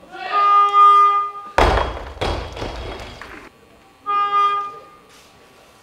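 An electronic buzzer tone sounds for about a second, then a loaded 109 kg barbell with bumper plates is dropped from overhead and crashes onto the wooden lifting platform, bouncing and knocking a few times. The same buzzer tone sounds again briefly about four seconds in.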